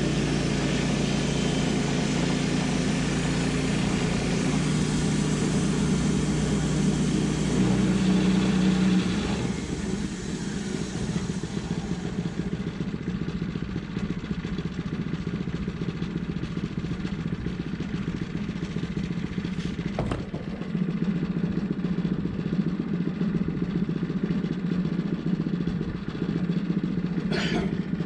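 Wood-Mizer LT10 bandsaw mill running while sawing a log, its engine and blade making a steady mechanical din. About nine seconds in the sound drops, and the engine runs on more quietly.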